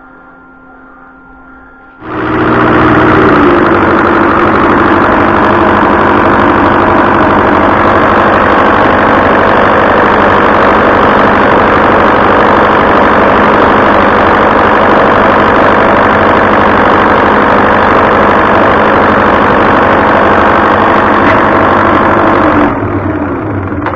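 Diesel fuel injection pump from an MTZ-82.1 tractor being driven on a test stand, starting suddenly and running loud and steady for about twenty seconds before it is shut off. It is being tested after a rebuild, and the results vary from run to run.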